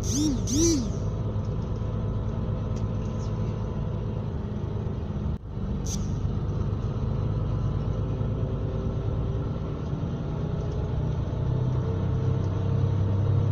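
Steady engine and road rumble of a moving motor vehicle, heard from inside it. Two short rising-and-falling tones sound in the first second, and the sound briefly drops out about five seconds in.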